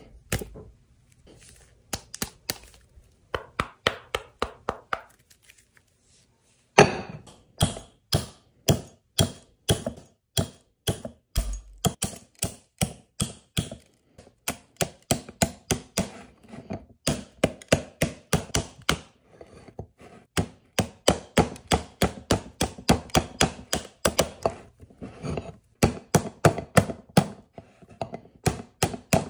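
Knife chopping on a cutting board: a few short runs of strokes, then from about seven seconds in a steady run at about three to four strokes a second.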